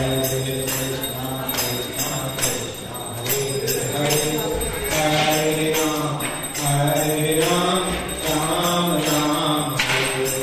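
Temple aarti kirtan: a male voice leads a devotional chant in long melodic phrases, with bells and hand cymbals ringing along in time.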